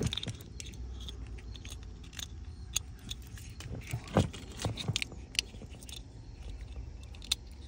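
Scattered small clicks and rattles of plastic wiring-harness connectors and corrugated wire loom being handled as the comma pedal's connector is brought up to the Chevy Bolt EV's accelerator-pedal harness plug. The sharpest click comes about four seconds in.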